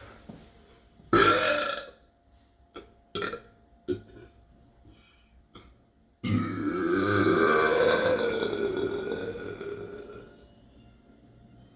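A person burping: a short, loud burp about a second in, two small ones a couple of seconds later, then one long drawn-out burp of about four seconds starting about halfway through, wavering in pitch as it fades.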